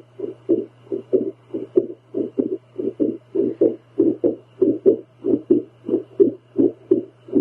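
Home doppler picking up a woman's heartbeat: rapid whooshing pulses, about three a second, over a steady low hum from the device. The uploader describes her heart as going into a very irregular rhythm.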